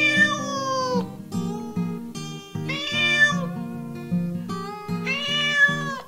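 Domestic cat meowing three times, each a drawn-out meow about a second long that falls in pitch at the end, over background music with plucked-string notes.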